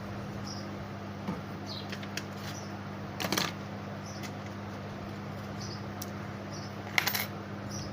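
Steady low electrical hum, with faint short high chirps every second or so and two brief clatters of tools or parts being handled on a repair bench, about three and seven seconds in.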